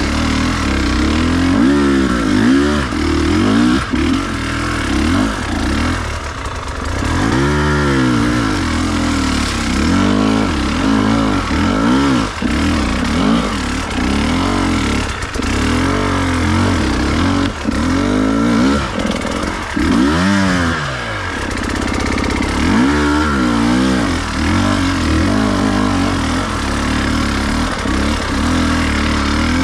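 Enduro dirt bike engine, heard from the rider's own bike, revving up and down again and again as it is ridden over rough ground, with about eight sharp rises and falls in pitch.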